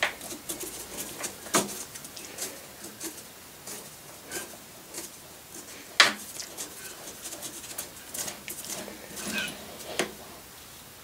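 Die in a tailstock die holder being turned by hand to cut a thread on a small steel pin held in a lathe chuck: irregular sharp metallic clicks and ticks with a few faint squeaks, the loudest click about six seconds in.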